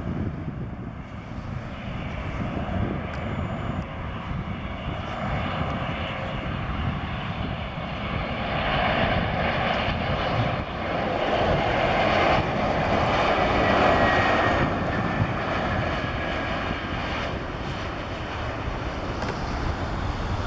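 Airbus A319 airliner's twin jet engines on final approach at landing power: a steady rumble that swells as the plane passes, loudest a little past halfway, with a faint falling whine, then eases off.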